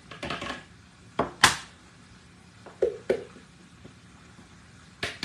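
Plastic parts of a manual food chopper and a spatula clacking and knocking as chopped carrots are scraped off the blade: a handful of separate sharp knocks, the loudest about a second and a half in.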